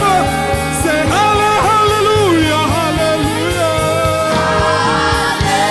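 Live gospel praise song: a male lead singer with backing singers over a full band.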